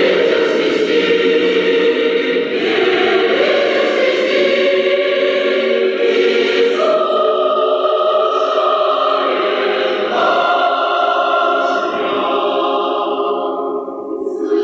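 A cappella choir singing held chords that move to new harmonies every few seconds, thinning out and growing quieter near the end.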